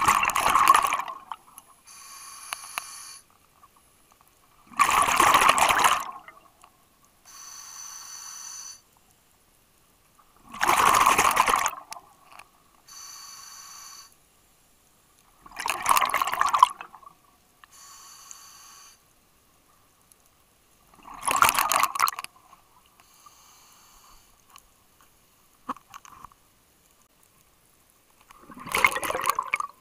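Scuba diver breathing through a regulator: six loud bursts of exhaled bubbles, roughly every five seconds. Between them come quieter, hissing inhalations through the regulator.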